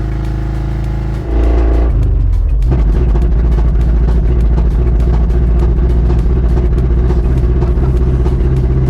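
1986 Ford Ranger's 2.3-litre four-cylinder engine running as the truck is driven, mixed with background music. The sound gets louder about a second in.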